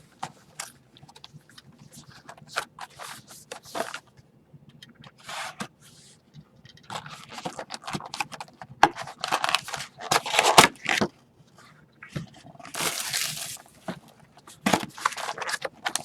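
A sealed retail box of hockey trading cards being torn open and its packaging handled: scattered crackles, scrapes and tearing, busiest and loudest from about seven to eleven seconds in.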